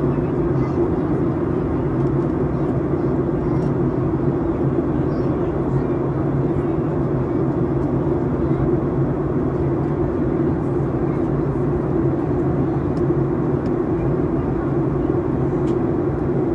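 Airliner cabin noise in flight: a steady drone of the engines and rushing air, heard from a passenger seat inside the cabin.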